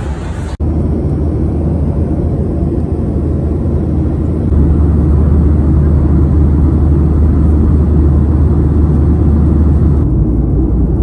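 Steady low rumble of a jet airliner cabin in flight, engine and airflow noise heard from a window seat. It starts abruptly after a short cut and gets a little stronger in the low range about four and a half seconds in.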